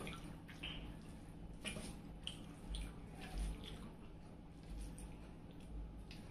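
Close-miked eating of a rice meal: wet chewing and soft lip smacks, with a few dull low thumps.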